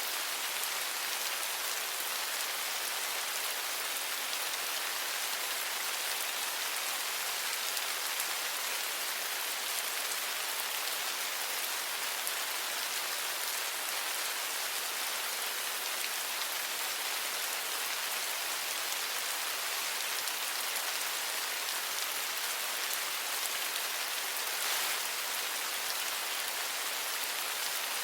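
Steady rain falling, an even hiss of many drops with no pauses, and one brief slightly louder patch near the end.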